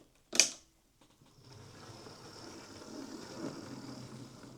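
Small electric motor of a Hornby Class 9F 00 gauge model locomotive running faintly on DC, with no short circuit: the tender pickups' polarity is right. About half a second in there is a short sharp sound, then the running stops for about a second and starts again as a steady low hum.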